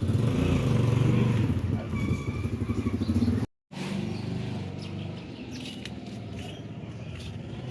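A vehicle engine running, louder at first, broken by an abrupt cut about three and a half seconds in and quieter afterwards, with a few light clicks.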